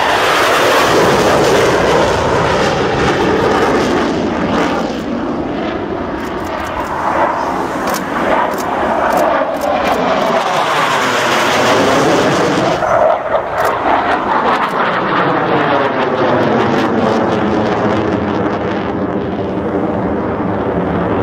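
MiG-21 LanceR-C fighter jet's engine running in afterburner through a pass and climb: a loud, continuous roar with sweeping, phasing tones that slide up and down. A few crackles come through a third of the way in, and from about halfway the roar loses its top as the jet climbs away.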